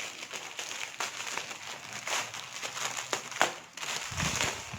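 Plastic parcel packaging and bubble wrap crinkling and rustling as the parcel is unwrapped by hand, with one sharp crackle about three and a half seconds in.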